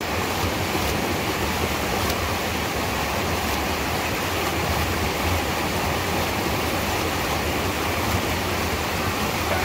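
Creek water rushing and pouring over a boulder in a small cascade: a steady whitewater rush that cuts in suddenly and holds even throughout.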